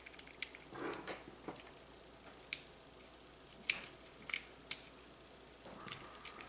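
Faint handling noise: scattered light clicks and a brief rustle as a power cord is pushed through the hole of a replacement plug's cover.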